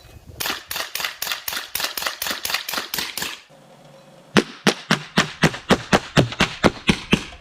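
A .25 caliber AEA semi-automatic PCP air rifle firing in rapid strings, two runs of about a dozen shots each at about four shots a second, with a short break in between.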